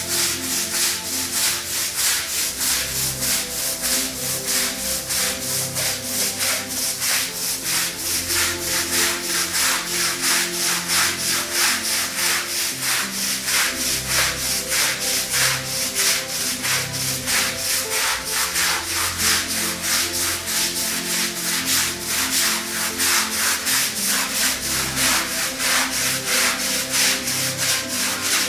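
Long-handled stiff-bristled brush scrubbing a wet, shampoo-foamed carpet pile in fast, even back-and-forth strokes, a loud rhythmic scratchy swishing.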